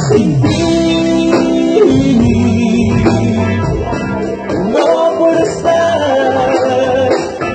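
A live grupera band playing a slow romantic song: electric guitar and drum kit with singing in long held notes.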